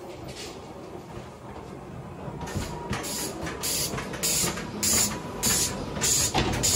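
Ghost train ride car rattling along its track. A low rumble is joined about two and a half seconds in by a regular clatter of short, hissy knocks, roughly one and a half a second, which grows louder.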